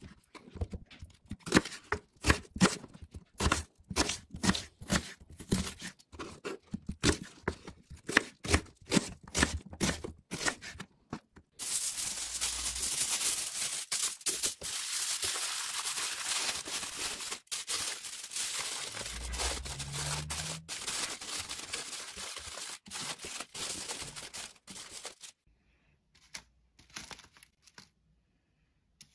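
A knife cutting through an onion onto a wooden cutting board, a quick run of crisp cuts about two or three a second. Then aluminium foil is crumpled and shaped by hand, a steady crinkling for about thirteen seconds, followed by a few soft taps near the end.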